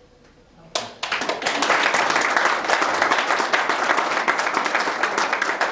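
Audience applauding, breaking out suddenly about a second in after a short quiet pause and going on as a steady, dense patter of many hands clapping.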